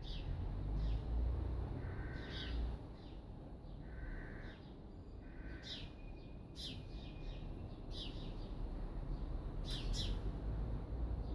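Small birds chirping, many short high calls scattered irregularly, over a low steady rumble.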